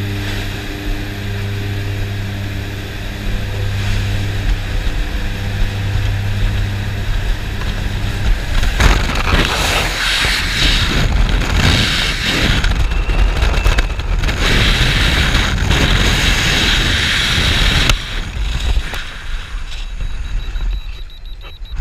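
Skyvan's twin turboprop engines droning steadily, heard in the cabin with the jump door open. About nine seconds in, this gives way to a rough, fluctuating rush of freefall wind buffeting the helmet camera's microphone, which drops off sharply near the end.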